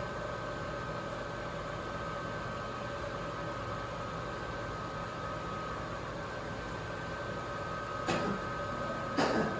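Fulcrum CNC router's stepper motors running with a steady whine and hum as the machine travels to its storage position. There are two short knocks near the end, the second louder.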